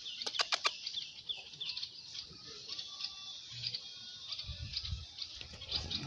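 Small birds chirping repeatedly, short falling chirps, with a few sharp clicks about half a second in and a low rumble near the end.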